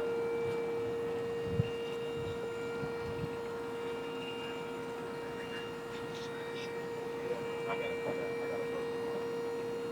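Powered lift mechanism of a yacht's aft sunbed running with a steady hum as it raises the hatch over the storage compartment, cutting off near the end.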